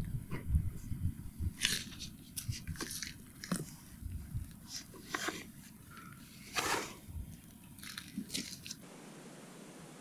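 Rustling and crunching of a plastic bag and gear being handled and lifted onto the shoulder, in short irregular bursts with a few dull knocks. About nine seconds in it cuts to a steady faint hiss.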